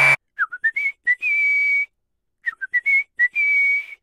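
Whistling of a short tune. A few quick notes dip and then climb into one long held high note, and the phrase is whistled twice.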